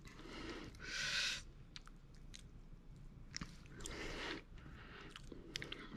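Faint wet, sticky sounds of marshmallow fluff being spread by fingers and a spoon over chocolate in a cake pan, with two short hissy noises and a few small clicks.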